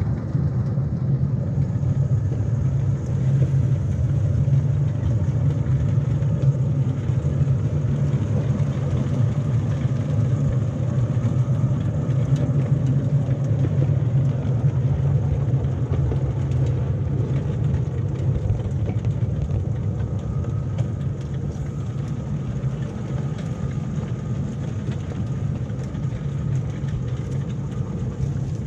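Battery-electric 7¼-inch gauge locomotive running along its track: a steady, heavy rumble of the wheels on the rails and the drive, with small scattered clicks.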